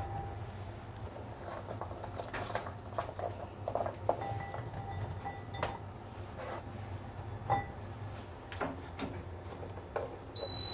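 Light knocks and clinks as cut long beans are handled in a ceramic bowl, then a plug is pushed into a wall socket and an electric appliance gives one loud, steady high beep near the end.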